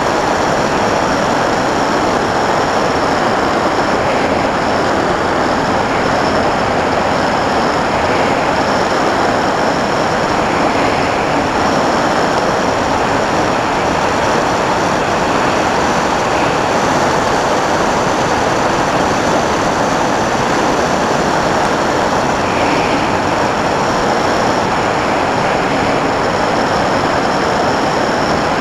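A Sky Cruiser 2400 FPV model plane's motor and propeller run steadily in cruising flight, with a faint high whine over loud, even wind rush, heard through the microphone of the camera mounted on the airframe.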